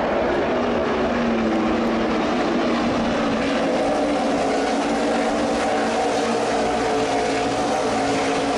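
A pack of NASCAR Nationwide Series stock cars running at race speed, their V8 engines at high revs overlapping into one steady, loud drone of several pitches, with one engine note climbing in the first couple of seconds.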